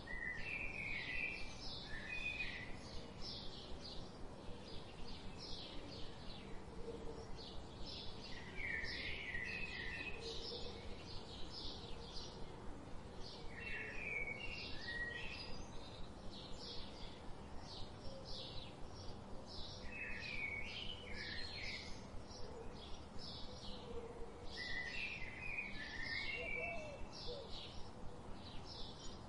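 Birds chirping: a steady run of short high chirps about two a second, with a lower warbled phrase breaking in every five or six seconds, over a steady hiss.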